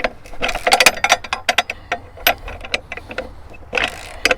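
Ratchet wrench clicking in quick runs as mounting nuts are tightened, with a few metal clinks; one longer run of clicks about half a second in and a short run near the end.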